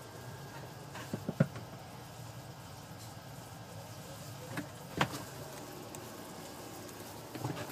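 Faint steady background noise with a few sharp clicks or taps: a quick group of three about a second in, and two more around the middle.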